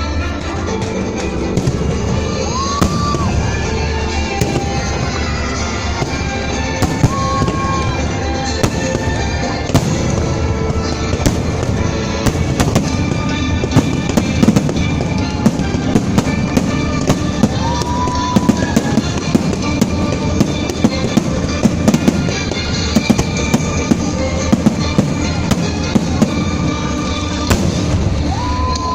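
Fireworks display: a continuous run of bangs and crackles from bursting aerial shells, with music playing beneath them.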